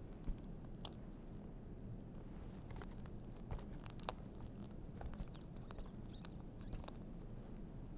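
Faint scattered clicks and crinkles of plastic IV tubing and a soft plastic IV fluid bag being handled while the tubing's spike is pushed into the bag's port.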